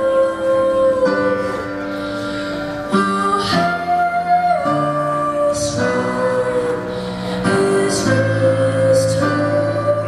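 A boy singing a sacred song solo into a microphone over instrumental accompaniment, holding long notes that move step by step to new pitches.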